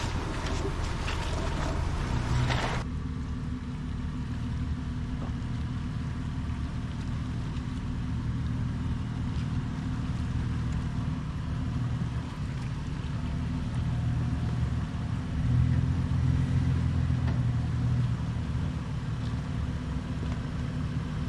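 About three seconds of rushing outdoor noise that cuts off suddenly, then a 4x4 SUV's engine running low and steady as it crawls the trail, swelling a little a few times.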